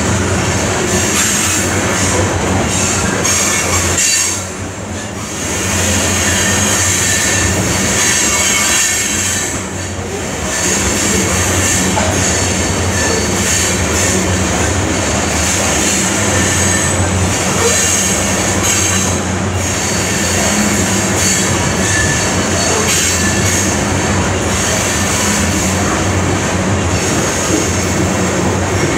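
Heavy coal train's open-top coal cars rolling past close by: a loud, steady rumble of steel wheels on rail with a high wheel squeal that comes and goes. The noise dips briefly twice, about four and ten seconds in.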